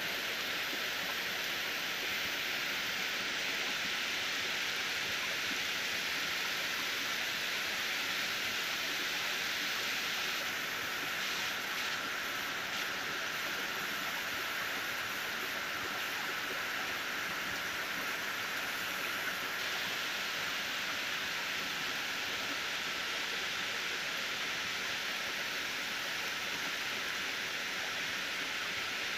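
Steady rain falling on trees and coconut palms, an even hiss that holds without a break.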